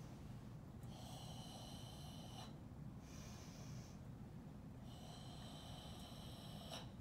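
A karateka's controlled breathing during the slow movements of the kata Seiyunchin: two long exhalations of about a second and a half each, one about a second in and one about five seconds in, each cut off sharply, with a shorter, softer breath between them.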